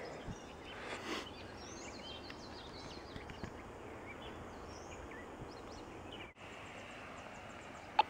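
Faint field ambience: a steady low hiss with scattered distant bird chirps, mostly in the first half. The sound cuts out for an instant about six seconds in.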